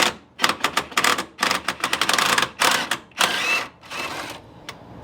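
Hand socket ratchet clicking in quick runs as bolts are worked loose, followed by a short scrape and one last click near the end.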